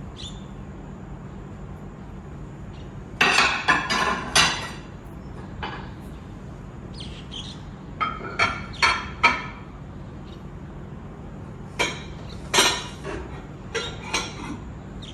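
Ceramic plates and bowls clinking and knocking against each other as they are lifted out of a cupboard and set down, in several short clusters of clatter.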